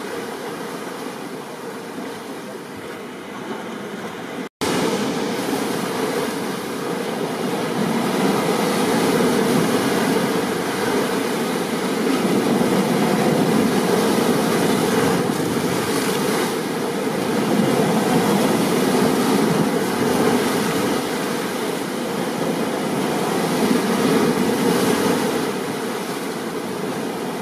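Steady rain and stormy ocean surf noise, swelling a little a few seconds in, with a brief cutout of the sound about four and a half seconds in.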